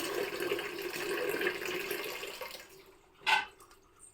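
Tap water running into a pressure cooker, fading out about two and a half seconds in as the tap is shut. A single sharp knock follows about a second later.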